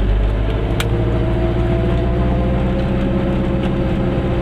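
Car driving slowly, its engine and tyre noise heard from inside the cabin as a steady low drone, the engine note creeping up slightly in pitch. A single sharp click about a second in.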